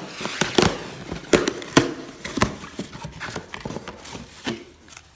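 Cardboard shipping box being cut open with scissors and handled on a wooden table: irregular knocks and taps, with rustling of the cardboard flaps between them.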